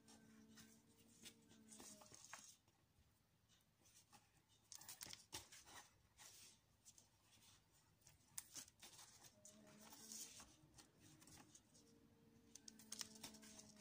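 Near silence: faint rustling and light ticks of macrame cord being handled and pulled tight by hand while square knots are tied.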